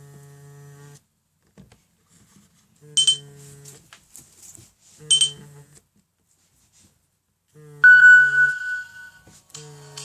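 A Nokia N97 Mini ringing with vibration on. Its vibration motor buzzes in pulses of about one to two seconds, one every two seconds or so, over short chime notes from the ringtone. A longer ringing note fades out near the end.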